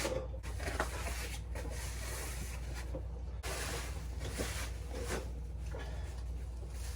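Rustling and rubbing of foam and fabric being handled and pushed into place as the prop's leg foam is fitted, in uneven swishes with a few soft knocks.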